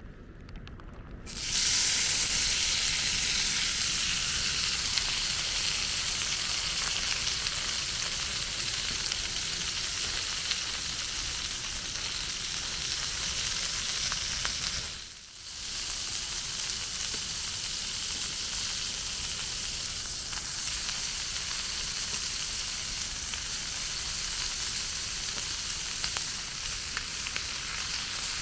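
Food sizzling in a hot frying pan over a campfire. The sizzle starts suddenly about a second in and drops out briefly about halfway through before carrying on steadily.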